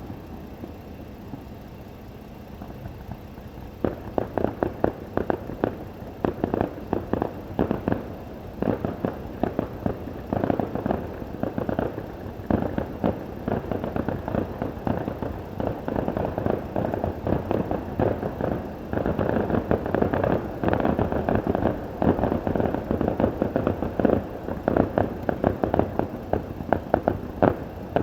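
Fireworks going off in a dense, rapid run of crackling pops, many a second, starting about four seconds in and continuing without a break.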